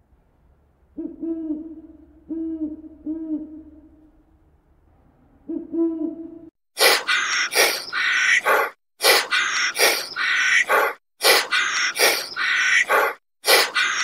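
Owl hooting: a few low, steady hoots through the first half. From about six and a half seconds in, a much louder harsh, noisy call repeats in short bursts, its source unclear.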